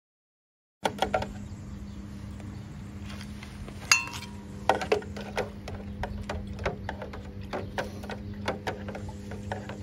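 Irregular small clicks and taps from a metal tool, a glass measuring cup and a plastic watering can being handled while hot mustard is mixed into water, with one sharp ringing clink about four seconds in. A steady low hum sits underneath, and the sound starts about a second in after silence.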